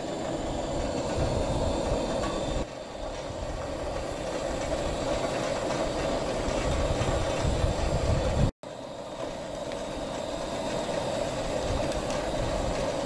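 Maple syrup at a frothy, rolling boil in a frying pan over a camp stove burner: steady bubbling and burner rush, broken off briefly twice. A frothy boil across the whole pan means the syrup is close to finished and ready to bottle.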